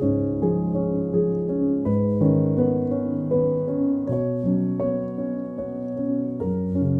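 Calm instrumental background music: held low notes that change every two seconds or so under a melody of short notes.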